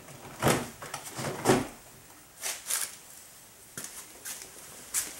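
A loose plastic door trim panel being handled against the door, giving a handful of separate knocks and scrapes, the loudest about a second and a half in.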